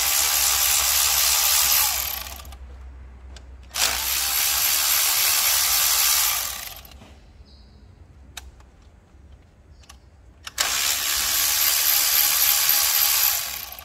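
Power tool running in three spells of about three seconds each, spinning out the intake manifold's T30 Torx bolts, with a few light clicks in the gaps.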